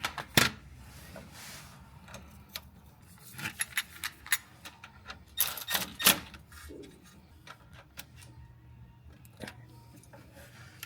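Metal hand tools clinking and clicking in short irregular clusters as the supercharger's oil drain plug is refitted, over a faint low hum.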